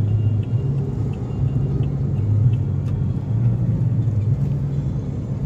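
Road noise heard inside a moving car's cabin: a steady low rumble from the engine and tyres at highway speed. Faint light ticks come through during the first few seconds.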